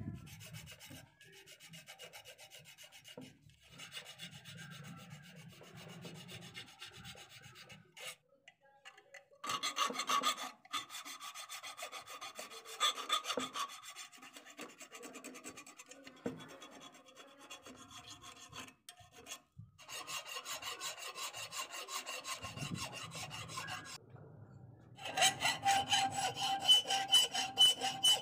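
Hand files rasping on rusty steel pliers in repeated back-and-forth strokes. The filing comes in several separate bouts with abrupt breaks between them, and is loudest near the end.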